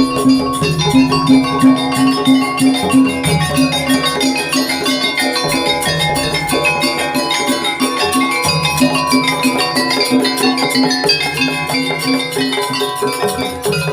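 Javanese jaranan campursari music: metal percussion ringing out melodic notes over drums, with a steady repeating beat.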